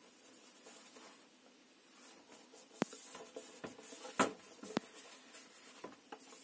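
Hands handling and turning over a rigid cardboard box, fingers rubbing and sliding over its surface, with three sharp taps on it, the loudest about two-thirds of the way in.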